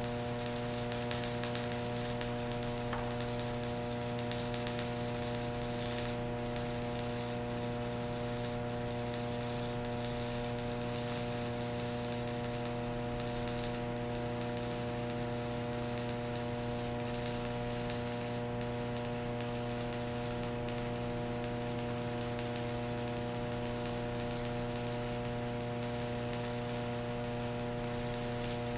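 Stick-welding arc from a small inverter welder burning a Golden Bridge J422 electrode, crackling steadily over a constant electrical hum. It runs with a lot of popping rather than a steady hiss, which the welder puts down to how Golden Bridge rods behave.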